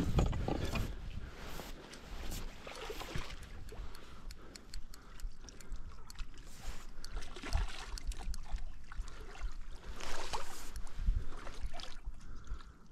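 A hooked barbel splashing at the surface as it is played in toward a landing net, in irregular bursts, the strongest about ten seconds in, with low knocks from the rod and net pole being handled.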